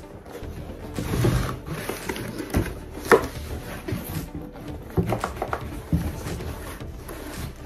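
Cardboard boxes being handled: rustling and scraping with several sharp knocks as a laptop's cardboard box is lifted out of a shipping carton.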